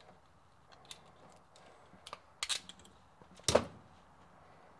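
Faint, scattered clicks and snaps of a hand wire cutter/stripper working on a small automotive wire, with the sharpest click about three and a half seconds in.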